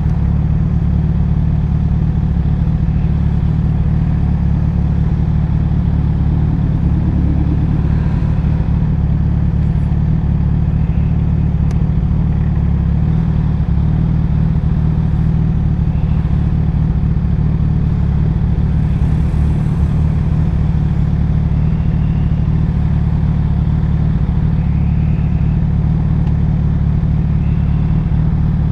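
Kawasaki ZX-10R's inline-four engine with a Graves race exhaust, running at a steady engine speed as a deep, even rumble that neither rises nor falls.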